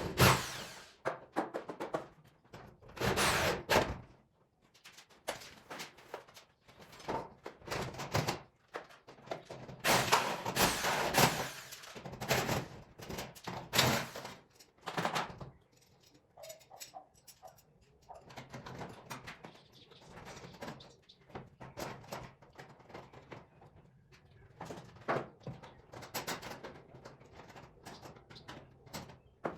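Irregular knocks, clunks and rattles of hardware being handled and fitted while a garage door opener is installed. The louder clatters come in short runs, with quieter handling noises between them.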